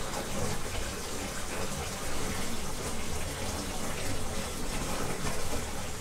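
Water running steadily into a stone washing trough.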